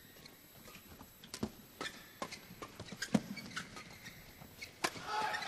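Badminton rally: rackets striking the shuttlecock in a fast exchange, about ten sharp hits spaced unevenly, roughly every half second. Crowd noise starts to swell near the end.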